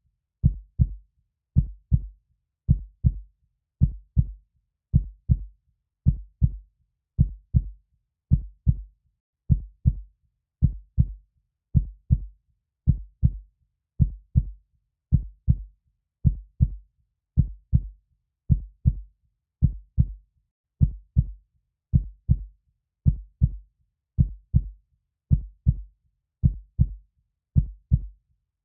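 Heartbeat: a steady lub-dub, two dull low thumps close together, repeating about once a second with silence between beats.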